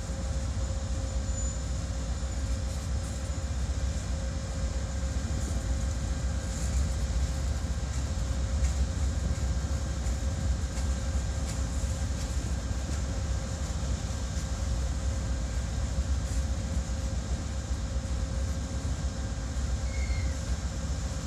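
Freight cars of a CSX crosstie train rolling past: a steady rumble of wheels on rail with a constant tone running underneath.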